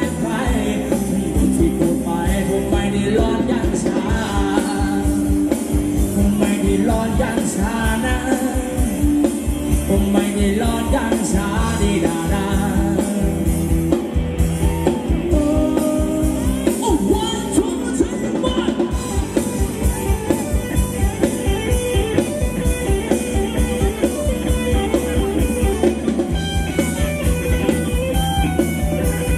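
Live band playing Thai ramwong dance music with a steady, driving beat and a melody line over it.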